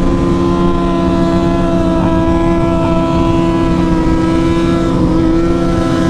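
Triumph Speed Triple's three-cylinder engine running at a steady cruising speed, its note holding an even pitch, with wind rushing over the helmet microphone.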